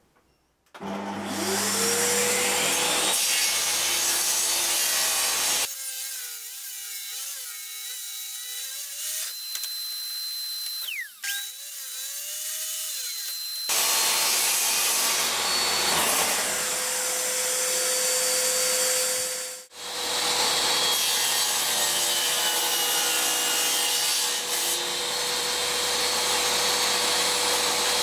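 Bosch table saw starting up with a rising whine about a second in, then cutting wood. The sound drops to a quieter, thinner stretch midway and the loud cutting picks up again about fourteen seconds in.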